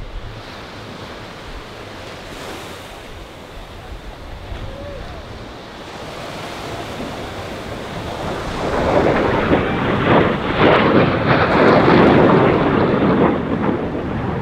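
Surf and wind on the microphone, then a Blue Angels F/A-18 Super Hornet's twin jet engines passing low, their noise building from about eight seconds in and loudest near the end.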